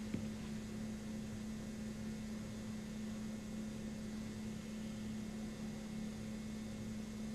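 Steady low electrical hum over an even hiss, with a single faint click just after the start.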